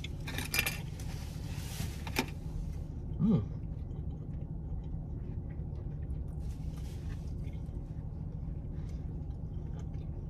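People chewing and eating, with rustling and small clicks during the first few seconds and a short hummed 'mm' about three seconds in, over a steady low hum inside a parked car.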